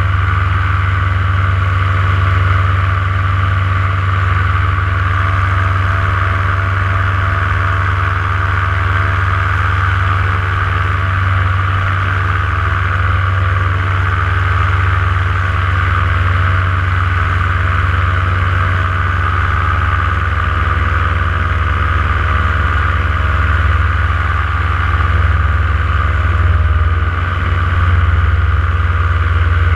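Powered paraglider's paramotor engine and propeller running steadily in flight, an even loud drone with a strong low hum.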